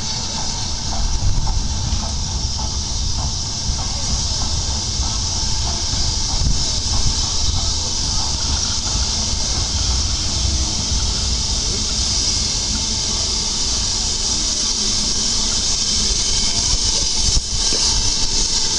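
BR Standard Class 9F 2-10-0 steam locomotive 92212 drifting in with a steady hiss of steam over a low rumble. The hiss grows a little louder as the engine comes closer.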